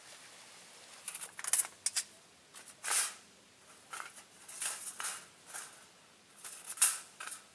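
Short scrapes, clicks and rustles of a small metal camp pot and cookware being handled, about a dozen coming irregularly, the loudest about three seconds in and again near the end.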